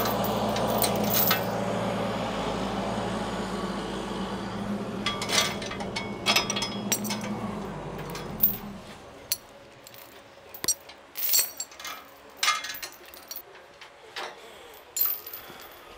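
A steady low hum that fades out about halfway through, followed by scattered metallic clinks and knocks, as of metal parts and tools being handled.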